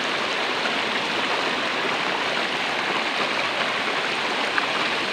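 Shallow river water rushing steadily over a flat rock, an even, unbroken wash of stream noise.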